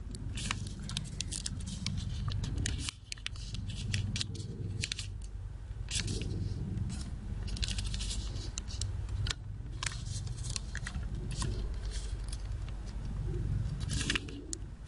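Origami paper being folded into a triangle and creased by hand on a wooden tabletop: irregular crackles and scrapes as fingers press and run along the fold and the paper slides on the wood.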